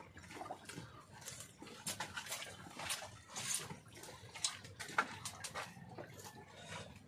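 People eating with their hands off banana leaves: scattered chewing and lip-smacking noises with soft rustling, in short irregular clicks.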